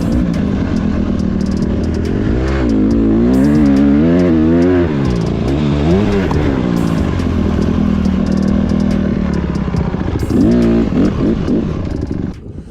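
Honda CRF150R dirt bike's single-cylinder four-stroke engine revving, its pitch rising and falling several times, holding steady for a few seconds, then the revs dropping away near the end.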